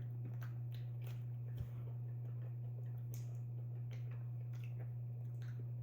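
Steady low hum, with faint scattered ticks and a soft knock about one and a half seconds in.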